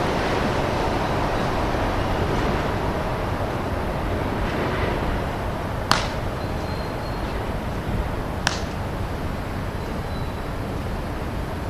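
Two sharp smacks of a baseball, about two and a half seconds apart, over a steady rushing noise that slowly fades.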